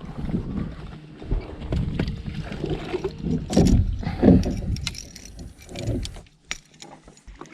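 Boat-on-the-water noise from a fishing boat: rumble and irregular knocks and splashes, loudest about halfway through, over a faint steady low hum.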